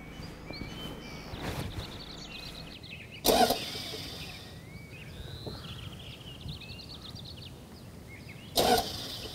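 Small birds chirping and trilling over a steady outdoor background, broken by two brief loud knocks, one about three seconds in and one near the end.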